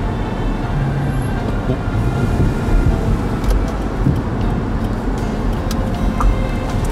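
A car driving along a road, heard from inside the cabin: a steady rumble of engine and road noise.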